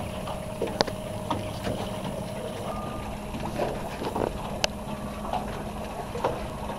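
Houseboat's motor running steadily under way: a low hum with a steady higher whine over it, and occasional sharp clicks and knocks.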